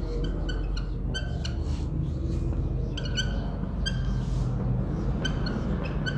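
Felt-tip marker squeaking on a whiteboard as words are written: a run of short, high squeaks, several a second and unevenly spaced, over a steady low hum.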